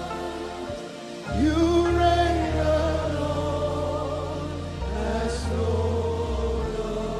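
Live gospel worship music: steady bass and sustained chords under singers holding long notes with no clear words, one voice sliding up into a long held note about a second and a half in.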